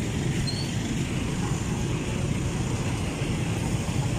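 Steady road-vehicle noise: an engine running and road noise, with no distinct events.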